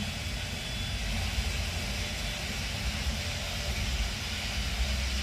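Steady low rumble with an even hiss and no distinct knocks or clicks.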